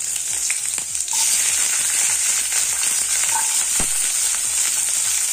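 Chopped onions and vegetables sizzling steadily in hot oil in a kadai, the sizzle growing louder about a second in.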